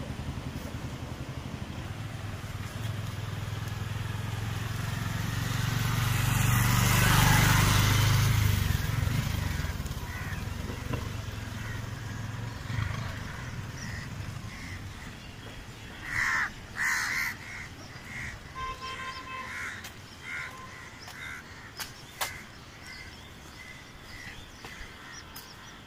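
A motorcycle approaches and passes on a concrete bridge, its engine growing to loudest about seven seconds in and fading away by about eleven seconds. Later a crow caws twice in quick succession, followed by scattered short bird chirps.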